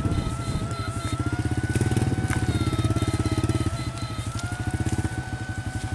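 Electric fishing shocker running: a rapid pulsing buzz with a high whine above it that wavers and dips in pitch.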